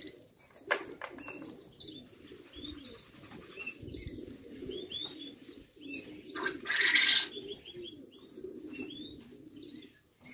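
Racing pigeons cooing steadily, with many short, high chirping calls throughout and a loud flurry of wing flapping about seven seconds in.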